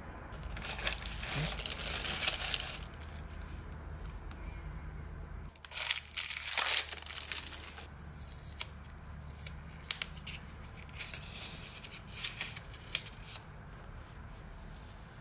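Rolls of paper washi tape being peeled off and unrolled, a crackling tearing sound as the tape lifts from the roll. The loudest peel comes about six seconds in, followed by short intermittent crackles.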